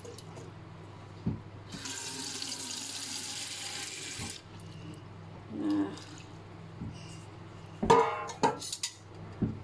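Water poured from a steel bowl onto dried red chillies in a steel pot, a steady splashing pour lasting about two and a half seconds, followed later by a few short knocks.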